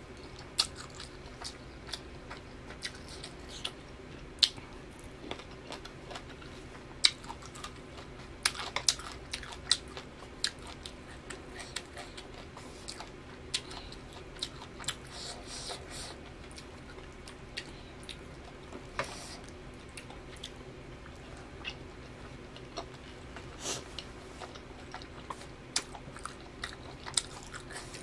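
Close-miked eating sounds: chewing and wet mouth smacks with irregular sharp clicks while eating spicy instant noodles.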